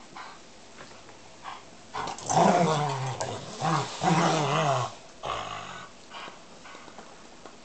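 Dogs play-growling: a run of loud, drawn-out, wavering growls between about two and five seconds in, with quieter growls and rustling either side.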